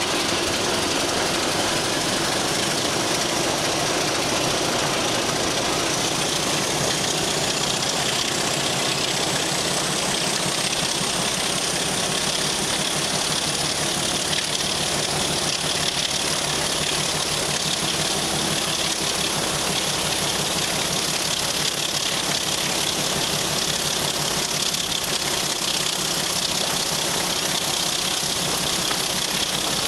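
Ex-BR Class 26 diesel locomotive's Sulzer six-cylinder engine running steadily under power in a tunnel. A high whine rises over the first ten seconds or so, then holds steady.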